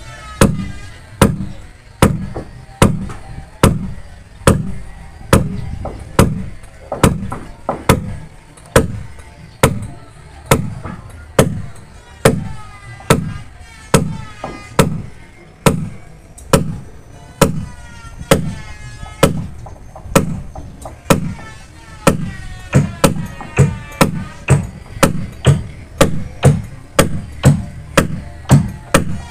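Claw hammer striking the head of a 10 mm iron rod, driving it down through a wooden boat frame toward the keel: steady metallic blows at a little more than one a second, quickening to about two a second near the end.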